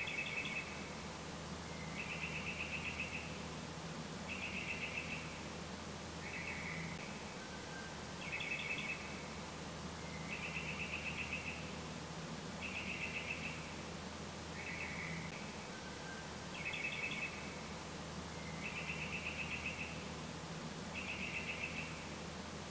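Repeated short trilled animal chirps, one about every two seconds, over a low steady hum.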